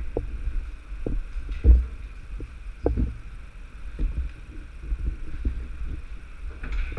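Dull, irregular thumps about once a second over a low rumble: knocks and handling noise on a body-worn action camera as its wearer moves.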